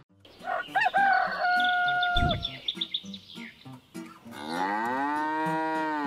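Farm-animal sound effects: a high call held for about a second and a few short bird chirps in the first half, then a long cow moo lasting about a second and a half near the end.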